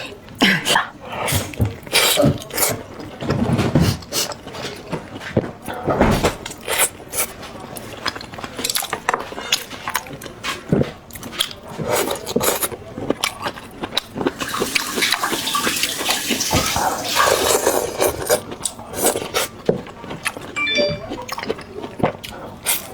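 Eating sounds: slurping and wet mouth noises, with many short clicks and knocks of utensils against a bowl, and a stretch of louder hissing slurps in the middle.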